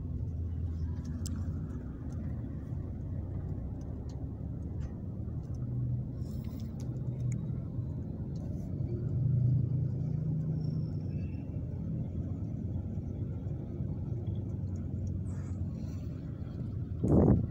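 Bus engine and road rumble heard from inside the moving bus's cabin: a steady low drone that swells a little about halfway through. A short, louder thump comes near the end.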